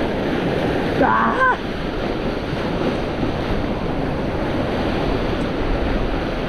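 Surf washing steadily against a rocky shore. About a second in, a person makes a brief vocal sound.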